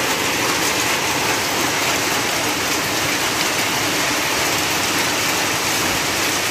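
Heavy rain mixed with hail pouring down in a steady, dense hiss.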